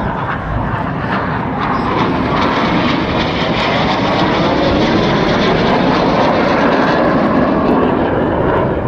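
Display aircraft flying past, a loud rushing engine noise that builds over the first couple of seconds, holds at its loudest through the middle and begins to fade near the end.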